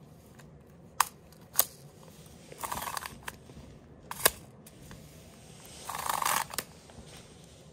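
Retractable tape measure being worked: the tape rasps as it slides out of its plastic case in two short stretches, about two and a half seconds in and again about six seconds in, with three sharp clicks between.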